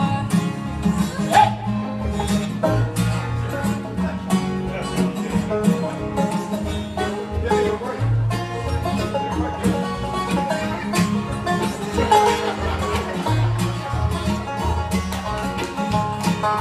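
Acoustic string band playing an instrumental break in bluegrass style: strummed acoustic guitar, fiddle, mandolin and a walking upright bass line, with no singing.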